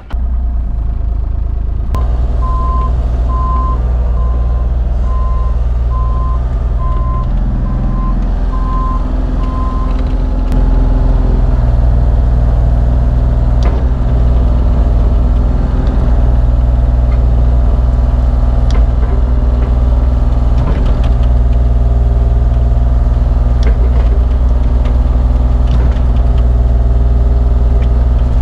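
Bobcat mini excavator's diesel engine running, with an evenly repeating warning beep, a little over one a second, from about two seconds in until about ten seconds in. About ten seconds in the engine is throttled up and runs steadily louder.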